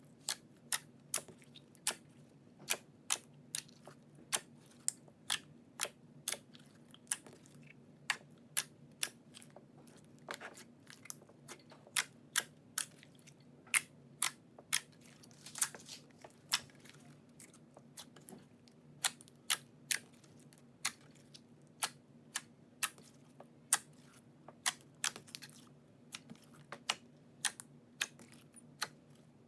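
Slime being squeezed and poked by hand: a steady string of sharp, crisp clicks and pops at about two a second, over a faint low hum.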